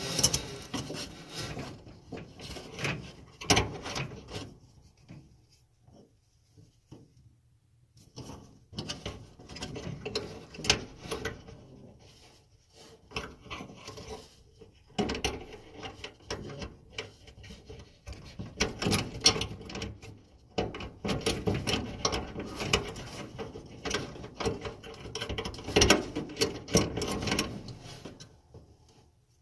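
Irregular clicks, taps and rattles of metal parts being handled as the idler pulley and its tension spring are fitted in a Samsung dryer, with a quieter pause about five seconds in and denser clattering in the second half.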